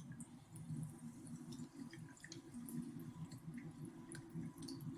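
Faint eating and drinking sounds: scattered small clicks and wet mouth noises over a low, steady hum.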